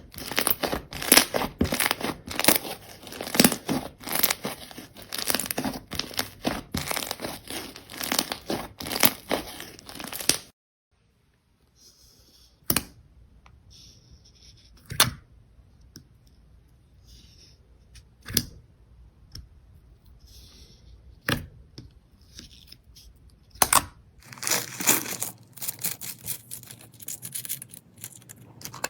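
Slime being squeezed and stretched by hand, with dense crackling and popping from about ten seconds. It cuts off suddenly, gives way to scattered single pops, then turns into dense crackling again near the end.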